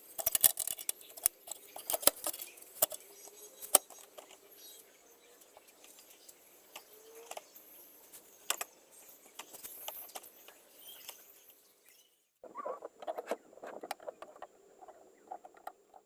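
Irregular light clicks and taps of things being handled, densest in the first few seconds, with a faint steady hum underneath; the sound drops out briefly a little after twelve seconds, then the clicking resumes.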